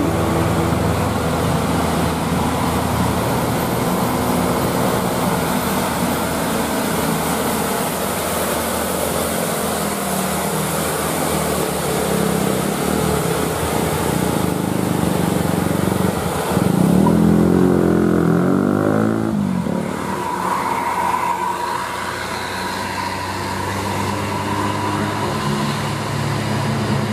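Diesel engines of loaded light dump trucks and other traffic running up a steep grade, with steady engine and road noise. About two-thirds of the way through, a louder engine comes close, its pitch rising and falling, followed by a brief steady higher whine.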